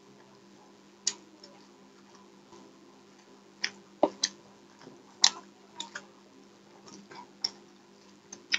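Eating sounds: about ten sharp, irregular crunches and clicks as crispy fried fish kabiraji, a fish cutlet in a lacy egg-batter coating, is broken up and eaten. A faint steady hum runs beneath them.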